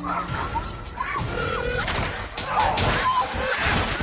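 Film soundtrack sound effects: a dense run of sharp crashing and crackling hits over music, with wavering, cry-like tones early on.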